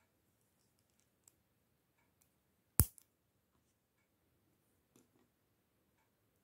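Small plastic LEGO pieces being handled and pressed together: a few faint ticks and one sharp, loud click a little under three seconds in.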